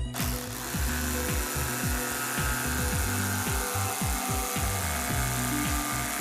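Background music with a steady beat over a power tool running continuously.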